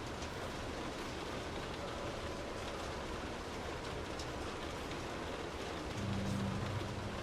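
Steady rain drumming on a car's roof and windows, heard from inside the cabin, with scattered drops ticking. A low hum swells for about a second near the end.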